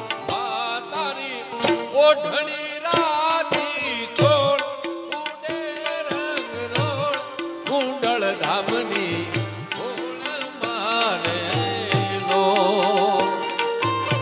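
Live Gujarati folk devotional music, a garba: tabla strokes and deep drum thumps keep a steady beat under a wavering, ornamented lead melody.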